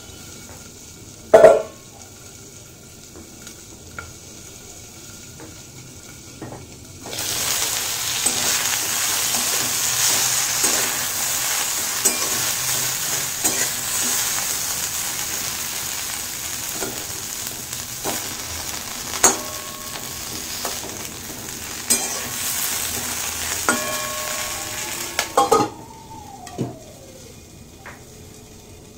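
Potatoes and drumsticks frying in oil in a kadai. After a quiet start with one sharp metal clank, a steady sizzle comes in about seven seconds in, with a steel spatula scraping and knocking against the pan as the vegetables are stirred. Near the end a clank and a brief ringing come as the lid goes back on, and the sizzle cuts off.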